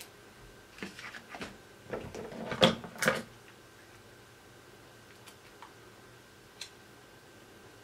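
Plastic accessories and cardboard packaging being handled: a run of clicks and rustles as a charger plug is set down and an earphone case is lifted from its tray, with two louder knocks about two and a half and three seconds in, then a few faint ticks.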